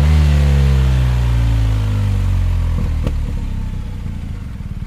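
BMW R 1250 RT's 1254 cc boxer twin breathing through an HP Sports silencer, its revs falling away after a blip of the throttle and settling over about three seconds into a lumpy idle.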